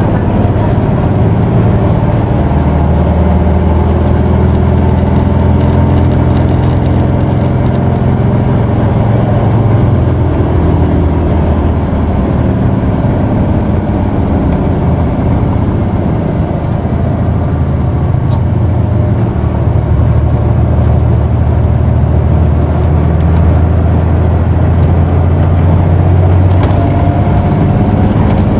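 Isuzu Erga city bus's 6HK1 turbo-diesel engine heard from inside the cabin while the bus drives, its note rising and falling with the throttle, easing off around the middle and pulling again after.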